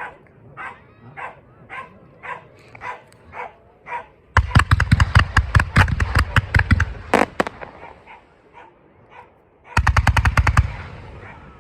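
A dog barks at an even pace, about twice a second, for the first few seconds. Then fireworks go off in a rapid volley of sharp crackling bangs for about three seconds, and again in a shorter burst near the end.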